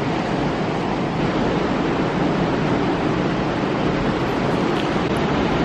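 Steady, even rush of ocean surf with some wind.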